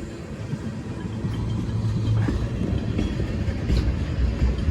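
CSX freight train's cars rolling by slowly: a steady low rumble of steel wheels on rail that grows a little louder, with a few faint, brief wheel squeals.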